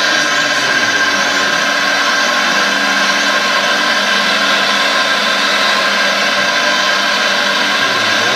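Scale RC hydraulic excavator (Liebherr R 960 model) running its electric hydraulic pump as it digs. The pump gives a steady, even whine while the boom and bucket work.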